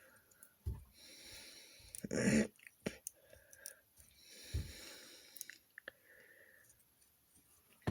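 Quiet handling of plastic LEGO pieces: a few faint clicks and soft knocks as parts are fitted together, with soft breathing close to the microphone.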